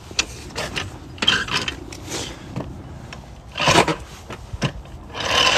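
Car jack being lowered and pulled out from under a car: scattered metallic clicks and scrapes, a louder scrape a little under four seconds in, and a longer scraping noise near the end.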